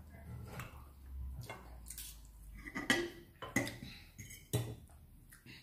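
Knives and forks clinking and scraping against dinner plates as people eat, in a string of separate sharp clinks, the loudest about three seconds in.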